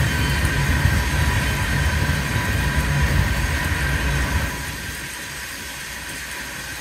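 Loaded open-top gravel cars of a freight train rolling past: a steady low rumble of steel wheels on rail. It eases quieter about two-thirds of the way through.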